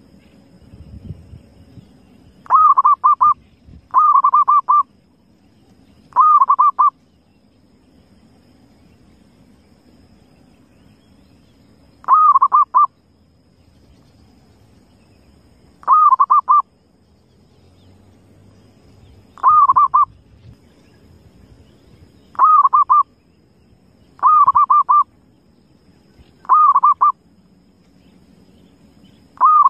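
Zebra dove (perkutut) cooing: about ten short, rapid trilled coo phrases, each under a second long, spaced irregularly a few seconds apart.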